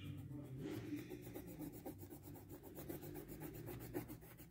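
A yellow crayon rubbing back and forth on paper as a drawing is coloured in: faint, soft scratching strokes with a few small ticks.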